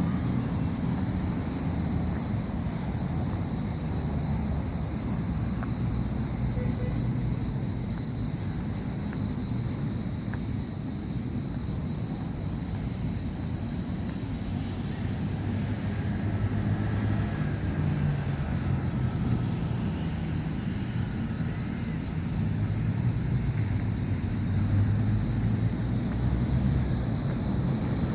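Steady low rumble, like a vehicle on the move, with a constant high hiss above it.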